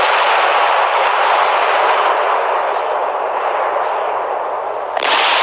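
Homemade firework burning with a steady, loud hissing rush that eases slightly, then a sudden sharp burst about five seconds in.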